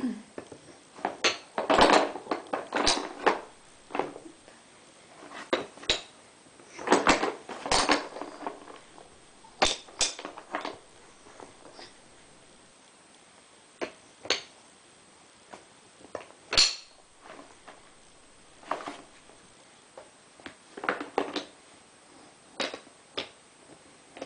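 Wooden toy blocks knocking and clattering against a wooden block train and the table as they are picked up, dropped and fitted onto its pegs: irregular sharp knocks, some in quick clusters, with short pauses between.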